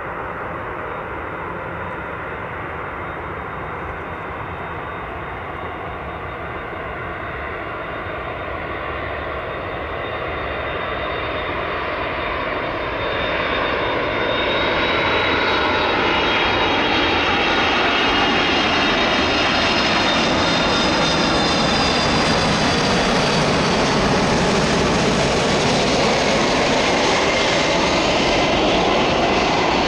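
Jet airliner's engines growing steadily louder as it approaches, with a high whine coming in over the rumble about halfway through, then holding at full loudness.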